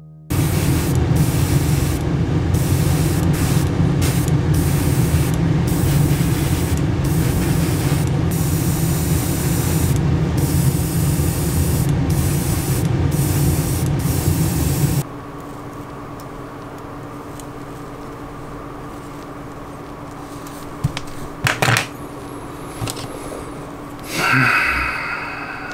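Airbrush spraying gloss clear coat: a loud, steady hiss, briefly dipping every second or so as the trigger is eased off, that cuts off suddenly about 15 seconds in. After it come a quiet steady hum and a few small clicks from handling the part.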